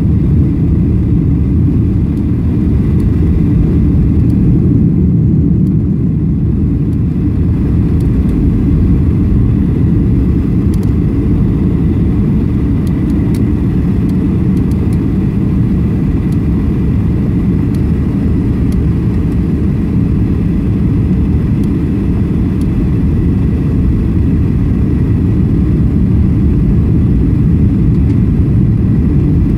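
Steady low rumble inside a jet airliner's cabin on final approach: engine and airflow noise heard from a seat over the wing, flaps extended, with a faint steady whine above it.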